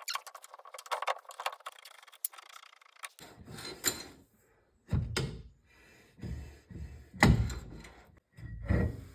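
Rapid ratchet clicking from a torque multiplier for about three seconds as the rear axle nut is worked loose. This is followed by about five separate knocks with some scraping, as metal parts and tools are handled.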